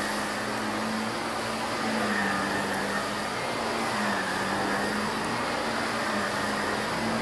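Shark upright vacuum cleaner running over carpet: a steady motor hum and suction noise, the hum's pitch stepping slightly up and down every second or so.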